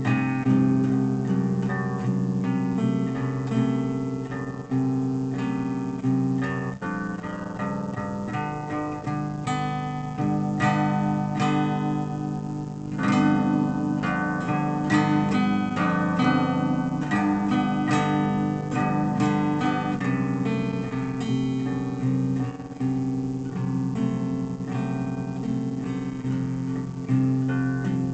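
Acoustic guitar music, with notes and chords plucked one after another without a break.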